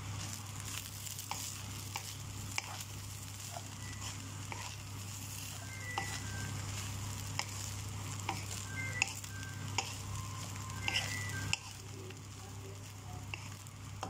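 Wooden spatula stirring and scraping fried brown rice in a nonstick pan, with a light sizzle, frequent small clicks of the spatula against the pan and a few brief high squeaks. A steady low hum runs underneath.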